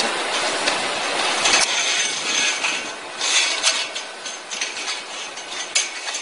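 Stiff plastic farm wire rustling and clicking as it is wound and knotted around a metal pole, with a few sharp ticks over a steady hiss.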